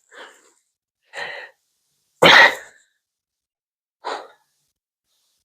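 A man's sharp, pained breaths and hisses: four short breathy bursts about a second apart, the loudest about two seconds in, as he reacts to a freshly smashed pinky finger.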